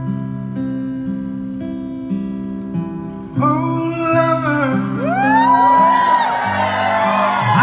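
Acoustic guitar strumming held chords at the end of a live song. About three seconds in, audience applause, whoops and whistles rise loudly over it.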